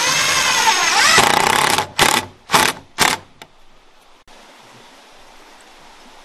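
Electric power tool running hard for about two seconds, its pitch falling as it works, then three short bursts about half a second apart.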